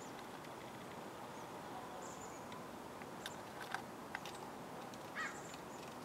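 Steady outdoor background hiss with a few faint light clicks a little after three seconds and around four, and a short high chirp about five seconds in.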